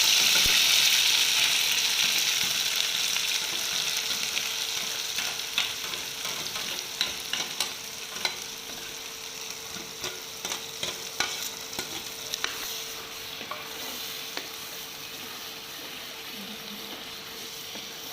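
Ground onion paste sizzling in hot oil in a pan. The sizzle is loudest at first and slowly dies down, with a spoon scraping and tapping against the pan as it is stirred.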